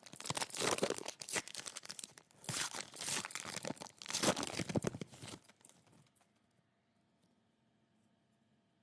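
Crinkling and crumpling of torn-open card pack wrappers being handled, a dense crackly rustle that stops about five seconds in.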